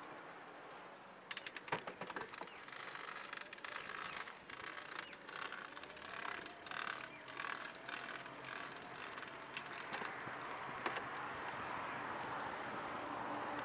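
Recumbent trike rolling along a concrete footpath: sharp clicks and rattling as it goes over the path's cracks and joints, settling about ten seconds in to a steady rushing hiss.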